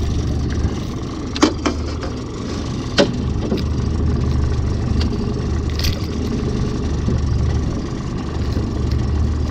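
Motorboat's outboard engine running steadily, a low continuous hum, with a few sharp clicks, the loudest about a second and a half and three seconds in.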